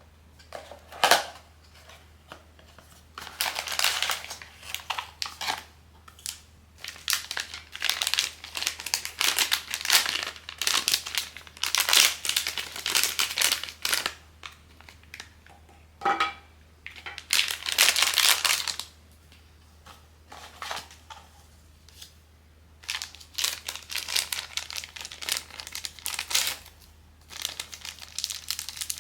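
Blind box packaging being handled and opened: crinkling and tearing in irregular bursts with short pauses, and a couple of sharp clicks.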